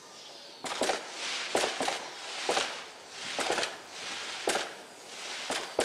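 New Year's Eve fireworks and firecrackers going off around town: irregular sharp bangs that echo, sometimes two in quick succession. A steady hiss of crackling runs between them. The bangs begin about half a second in.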